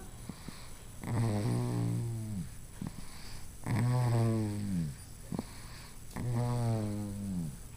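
Snoring in sleep: three long, buzzing snores about two and a half seconds apart, each dropping in pitch as it fades out.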